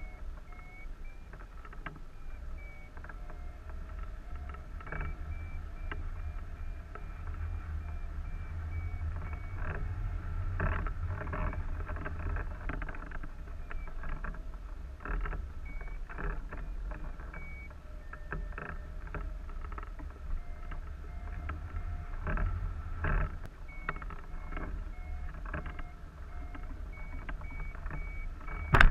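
Wind rushing over a wing-mounted camera on a hang glider in flight: a steady low rumble with frequent gusty flutters. A faint high tone sounds on and off in short pulses through most of it, and a sharp knock comes at the very end.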